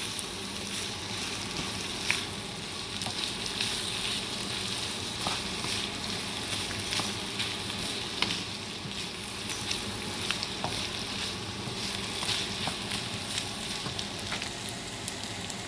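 Bamboo shoots and pork sizzling as they sauté in a wok, stirred with a wooden spatula that taps and scrapes the pan now and then.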